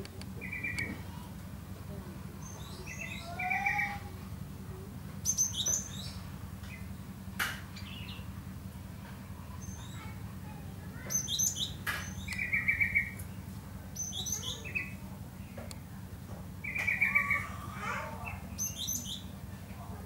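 A caged gelatik songbird calling in short bursts every couple of seconds: quick trills and high, sharp chirps, with two sharp clicks among them. A steady low hum runs underneath.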